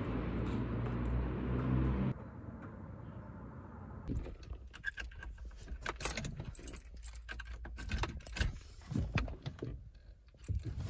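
Car keys jangling and clicking on their ring by the ignition, in many short bursts from about four seconds in. Before that, a steady outdoor rumble stops suddenly about two seconds in.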